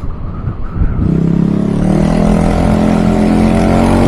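TVS Ntorq scooter's single-cylinder engine running loud through a broken exhaust muffler. It picks up about a second in and then holds a steady note.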